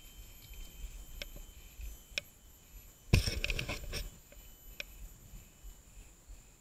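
Forest insects keep up a steady high-pitched drone. Over it come a few sharp clicks and, about three seconds in, a loud rattling scrape lasting about a second from the mountain bike and its camera mount.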